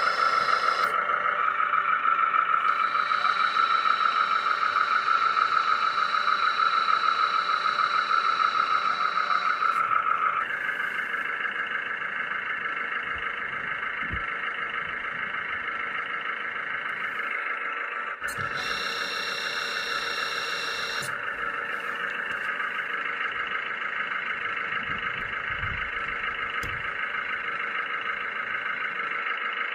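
Hydraulic pump of a Lesu MC15 RC hydraulic excavator model running with a steady electric whine. About ten seconds in the whine shifts higher and gets a little quieter. A thinner, higher-pitched whine joins it twice, for several seconds early on and again for about two seconds past the middle.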